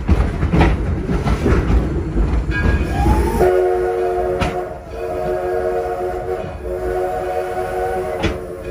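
Steam locomotive whistle sounding a steady chord of several notes for about five seconds. It starts about three and a half seconds in with a short rise in pitch and has a brief break early on. Before it comes the rumble and clatter of the moving passenger train.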